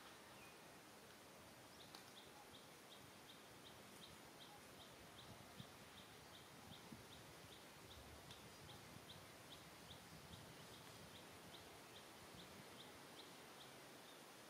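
Near silence with a faint, high chirp repeated evenly about three or four times a second; it starts about two seconds in and stops shortly before the end.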